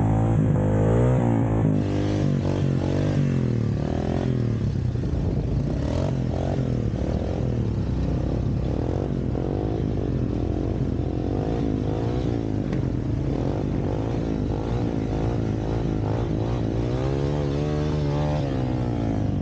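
Yamaha Raptor 700R ATV's single-cylinder engine running under throttle, its pitch rising and falling again and again as it revs up and eases off, with one more long rise and fall near the end.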